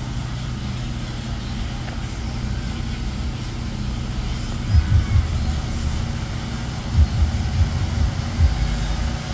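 Steady low rumble of idling vehicle engines, broken by a few dull low thumps about halfway through and again near the end.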